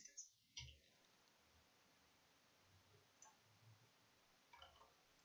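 Near silence, with a few faint computer mouse clicks scattered through it.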